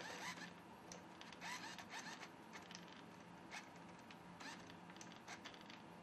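Near silence with faint scratching and rustling in a few short clusters: a giant katydid and a giant house centipede grappling, their legs scraping on a cork floor.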